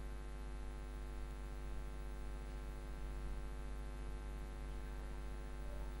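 Steady electrical mains hum with a buzz of many evenly spaced overtones, unchanging throughout.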